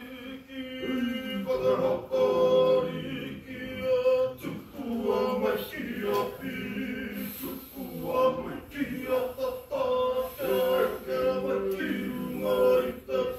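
A group of Māori performers singing a waiata, with male and female voices together.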